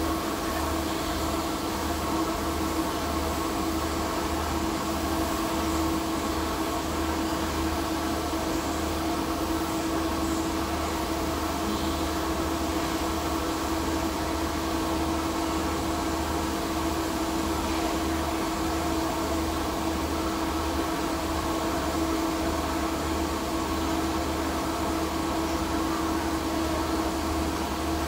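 TIG (argon) welding arc on a P22 chrome-moly alloy steel pipe joint, held in one long continuous run: a steady, unbroken drone with a constant hum under it.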